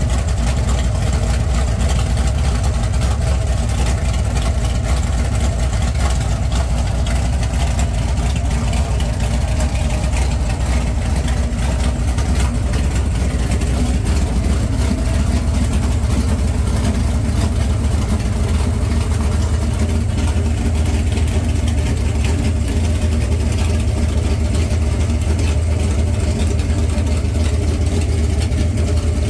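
347 cubic-inch stroker small-block Ford V8 with a hydraulic roller cam and Holley Super Sniper fuel injection, warmed up and idling steadily on a run stand, with no revving.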